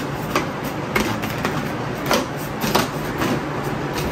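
Printed cardboard sleeve being slid off a clear plastic cold-cuts container: rustling and scraping of card against plastic, with repeated short plastic clicks and knocks about every half second.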